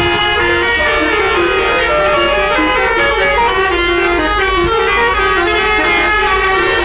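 Bus basuri telolet horn playing a melody in loud, sustained notes that step from pitch to pitch, over a steady low rumble.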